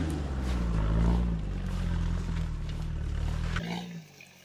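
Vehicle engine revving hard under load as it climbs a steep hill, the revs rising and falling. It cuts off abruptly about three and a half seconds in.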